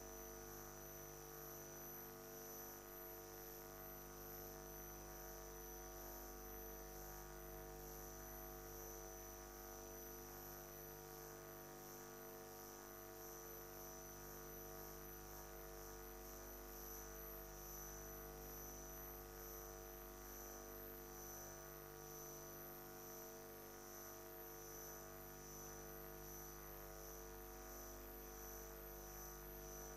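Near silence filled by a steady electrical hum of several low tones, with a faint high-pitched whine above it.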